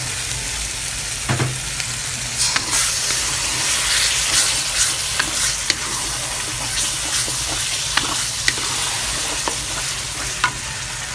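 Sambal chili paste and tomato sauce sizzling in oil in a pan while a wooden spatula stirs it. Scattered sharp scrapes and taps of the spatula against the pan sound over the steady sizzle, which is strongest in the middle.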